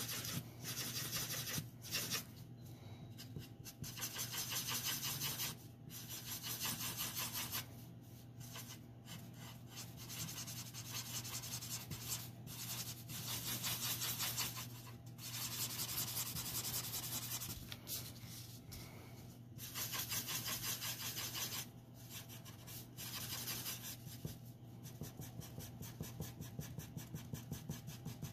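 Copic alcohol marker nib rubbing over paper in quick back-and-forth strokes: a fast, scratchy rubbing that comes in runs of a second or two with short pauses between them.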